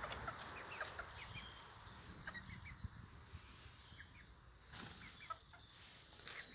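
Young hens (pullets) giving soft, short clucks and peeps: a scattered run of brief falling calls, faint throughout.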